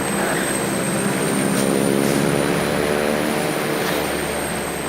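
Airplane passing overhead: a steady engine drone that swells to its loudest about two seconds in and then fades away.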